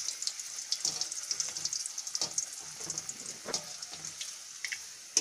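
Atta-dough chicken bullets deep-frying in hot oil in a steel kadai: a steady high sizzle full of small crackles and pops. A few sharper clicks stand out about a second, two seconds and three and a half seconds in.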